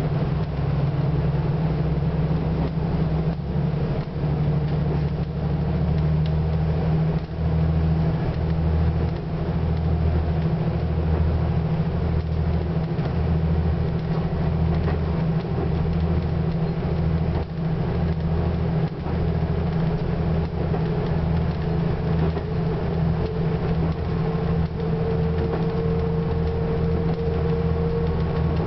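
Diesel limited-express train running along the line, heard from inside the car: a steady low engine drone that pulses slightly, with occasional clicks from the running gear. A higher tone grows stronger near the end.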